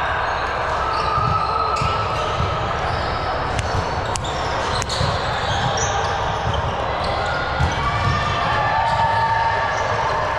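Echoing gym sound of an indoor ball game: a ball thudding irregularly over a hubbub of voices, with two sharp smacks about four and five seconds in.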